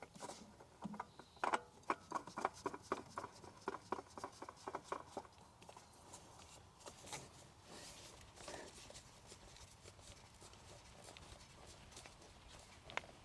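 A run of quick, light clicks and taps, about five a second for the first five seconds, then a few scattered ones, as a new oil filter is screwed onto a Sany mini excavator's Yanmar diesel engine.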